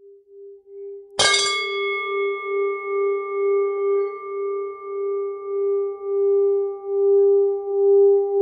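A faint, wavering ringing tone, then about a second in a bright strike sets off a bell-like ringing of several pitches together. The ringing holds on with its low note swelling and fading in a slow pulse, roughly one and a half swells a second.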